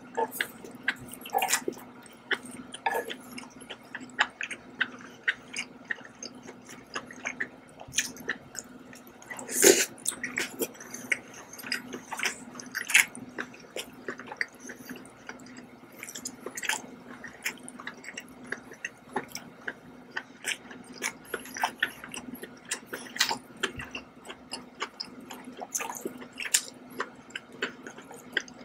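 Close-up wet chewing and mouth sounds of someone eating saucy scallops, with many sharp smacks and clicks scattered throughout, the loudest about ten seconds in. A steady low hum runs underneath.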